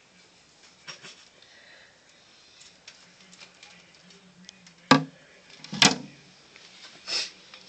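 A few sharp knocks over a faint steady hum: two loud ones about five and six seconds in, a softer one about a second in and another near the end.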